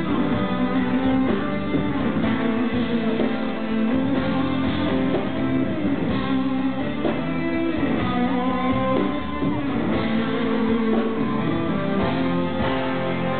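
A live rock band playing an instrumental passage without vocals: electric guitar over drums and bass, heard from within the audience.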